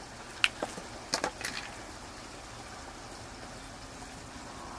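A few light clicks and taps in the first second and a half as a bait cup and fishing tackle are handled while a worm is put on the hook, then only a steady faint background hiss.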